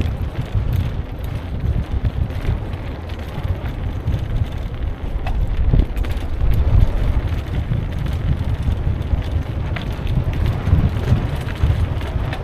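Wind buffeting the microphone of a camera on a moving mountain bike, a steady low rumble with scattered clicks and rattles from the bike riding over rough forest trail.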